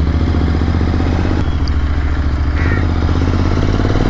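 Royal Enfield Interceptor 650's parallel-twin engine running steadily as the motorcycle gets under way.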